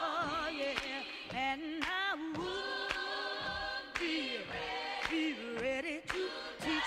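Gospel song sung between lines of its lyrics. A lead voice slides through runs and holds notes with wide vibrato over sustained background voices.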